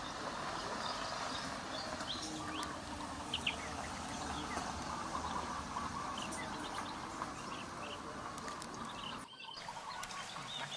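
Many short, high animal chirps and squeaks scattered over a steady background of outdoor noise, with a brief drop-out about nine seconds in.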